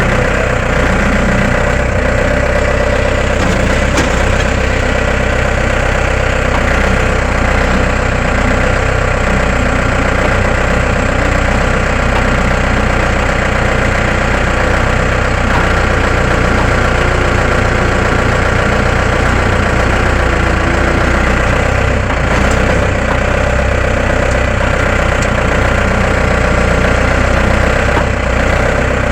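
Case 1845 skid steer engine idling steadily, with no revving.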